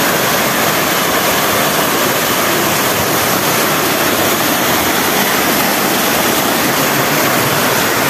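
Waterfall and the rocky stream below it rushing, a loud, steady roar of falling and tumbling water.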